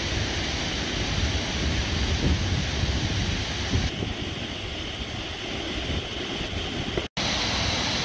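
Waterfall pouring over a low stone dam into a creek: a steady rush of falling water, briefly cut off for an instant near the end.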